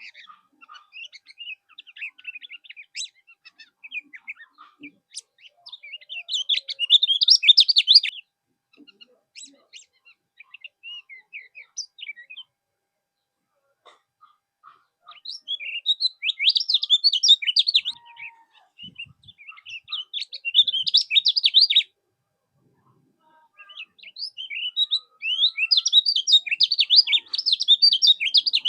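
Kecial kuning singing: repeated bursts of rapid, high chattering song, each lasting a few seconds, with short pauses between phrases.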